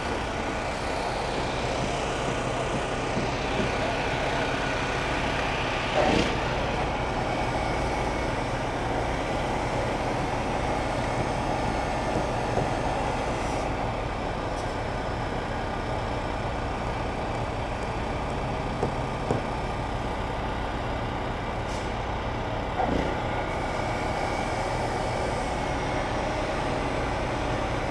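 An engine running steadily, with a few short knocks.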